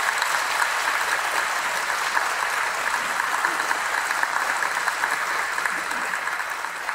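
Congregation applauding in a large church hall: a long, steady round of clapping from many people that slowly dies down toward the end.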